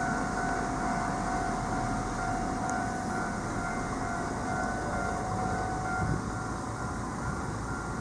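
Japanese railway level crossing alarm ringing, a steadily repeating electronic bell tone signalling that the barriers are down for an approaching train, over a steady rushing noise.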